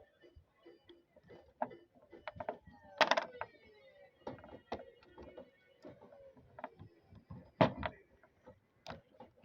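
Clicks, knocks and scrapes of the plastic clamshell housing of a DeWalt 20V brushless impact driver being pulled apart and handled. Two louder knocks stand out, about three seconds in and again near the end.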